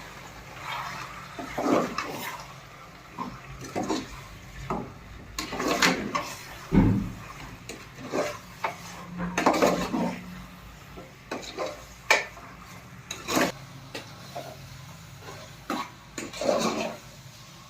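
Irregular clatter and knocks of metal pots, dishes and utensils being handled while cooking.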